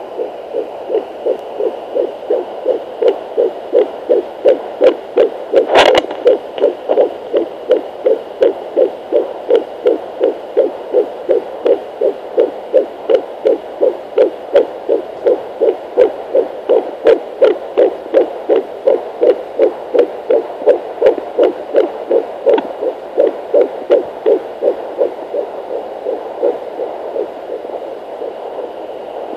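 A pocket fetal doppler's speaker playing a 10-week fetal heartbeat: a fast, even pulsing of about 160 to 167 beats a minute, nearly three a second, over a faint steady hum. A sharp crackle of probe noise comes about six seconds in, and the beats fade near the end.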